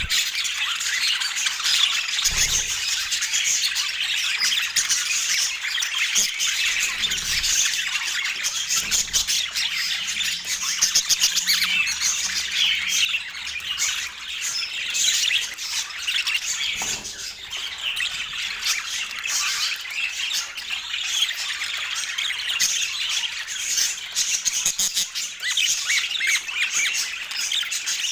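Budgerigars chattering and warbling without a break, a dense stream of quick squawks and chirps.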